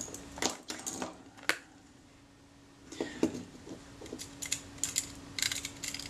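Sharp little metallic clicks and clinks from a camera's leaf shutter mechanism being worked and handled: a few clicks in the first second and a half, then a quicker run of small clicks. A faint steady hum runs underneath.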